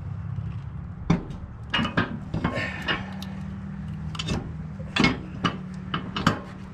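Steel snow-plow push frame clanking and knocking against the blade's mounting bracket as it is worked into position: a string of sharp metal knocks at irregular intervals, the loudest about a second in and near the end.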